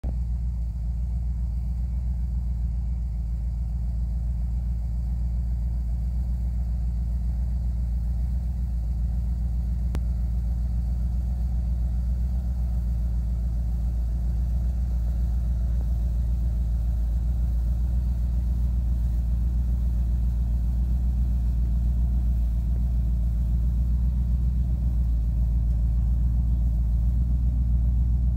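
Old full-size pickup truck's engine idling in gear as the driverless truck creeps along, a steady low rumble that grows slightly louder as it draws closer.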